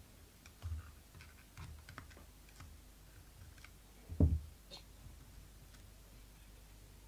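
Light clicks and taps of plastic electrical parts being handled: an overload relay and its pilot lamps picked up and moved about while wiring, with one louder knock about four seconds in.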